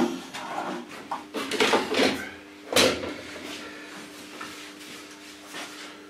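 Wooden birdhouse parts handled on a workbench: several separate wooden knocks and scrapes, the sharpest about three seconds in. A faint steady hum follows.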